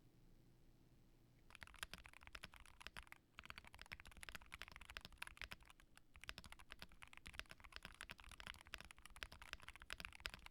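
Typing on a Keychron Q1 HE mechanical keyboard with Hall-effect switches and double-shot OSA keycaps: rapid, dense key clacks that start about a second and a half in, with two brief lulls.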